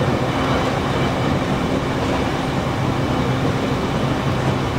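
Electric commuter train running at speed, heard from inside the carriage: a steady rumble of wheels on the track with a low drone.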